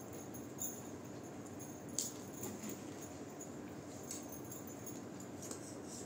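Faint background hum with a few brief crackles of newspaper being handled, the loudest about two seconds in.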